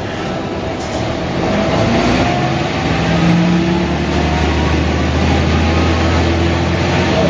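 Mercedes-Benz O345 Türk city bus's diesel engine under way, a faint whine climbing in pitch over the first few seconds, then running steadily with a deep low hum.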